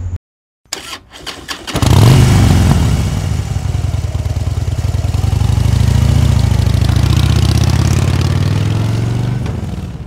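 Motorcycle engine starting: a few clicks, then the engine catches about two seconds in with a rev that falls away, and settles into a steady idle that eases off near the end.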